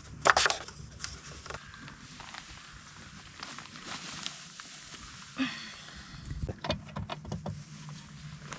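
Clicks and knocks of hands handling tools and parts while servicing an outboard motor: a sharp click about a third of a second in, then scattered small clicks and a few dull knocks, over a faint steady low hum.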